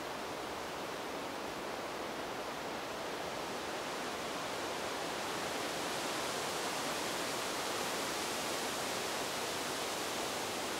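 Wind-rush sound effect: a steady rush of air, as of wind past a fast-flying quad, growing a little louder and brighter about halfway through.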